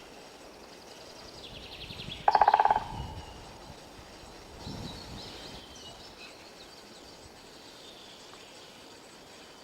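A woodpecker drumming on a tree: one short, very fast roll about two seconds in, swelling to its loudest before it stops. A fainter knock follows a couple of seconds later, with small birds calling faintly afterwards.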